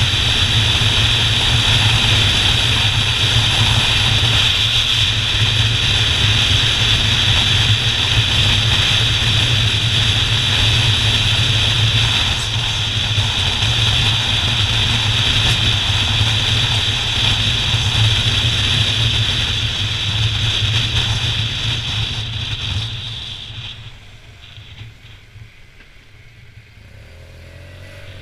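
Motorcycle engine and wind noise on a bike-mounted camera while riding at road speed, steady for most of the time. About three-quarters of the way through it falls away sharply as the bike slows almost to a stop at a junction, then starts to pick up again near the end.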